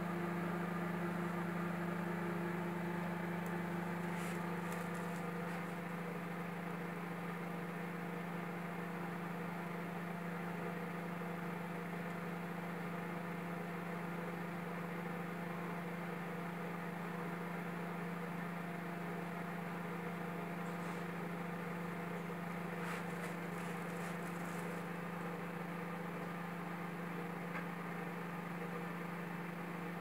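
FRIAC microwave oven running, a steady low hum with fan noise, as it heats a bag of microwave popcorn. A few faint ticks come now and then.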